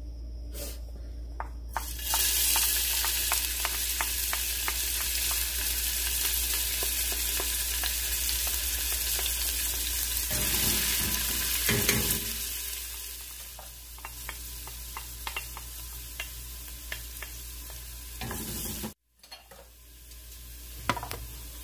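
Chopped red onion dropped into hot oil in a stainless steel pot, sizzling as it sautés, while a wooden spoon stirs it with many small taps and scrapes against the metal. The sizzle jumps up about two seconds in as the onion lands and is loudest for about ten seconds, then settles quieter; the sound cuts out for a moment near the end.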